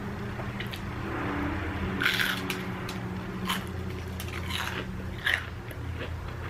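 Battered fried onion ring bitten and chewed, with several sharp crunches: the loudest about two seconds in, more through the middle and near the end. A steady low hum runs underneath.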